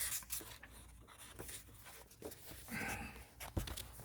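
Faint scratching and clicking, uneven and scattered, with a brief soft voice-like sound about three seconds in.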